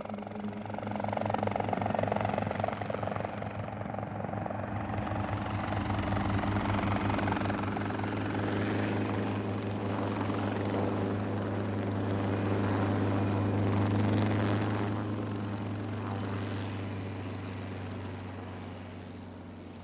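Small bubble-canopy helicopter flying low and close, its rotor beating rapidly over a steady engine drone. It grows louder about a second in and fades toward the end.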